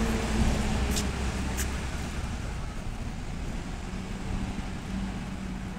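Articulated MAZ-215 city bus driving away from the stop, its engine rumble and steady engine note fading as it recedes.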